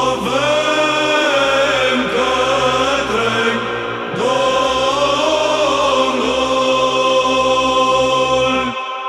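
Byzantine psaltic chant in the first mode (Glas 1), sung by a chant group: a slow melodic line moving over a steady held drone note (ison). The singing stops near the end.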